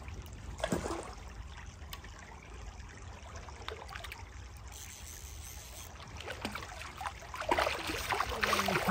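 River water trickling and flowing over a steady low rumble, with splashing in the water that grows louder in the last second or so.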